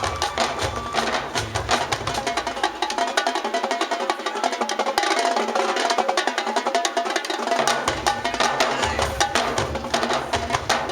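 High school marching band playing, with rapid drum and percussion strikes over pitched horn lines; the deep low end drops out for a few seconds midway, then returns.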